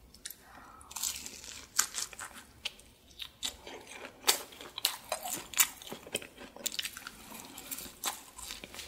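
Close-miked eating sounds: crisp crunching bites into a small fried hot dog, then chewing, with sharp, irregular crunches from about a second in.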